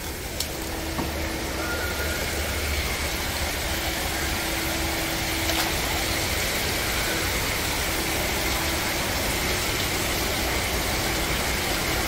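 Steady machinery hum under an even hiss, with a faint steady tone that comes and goes.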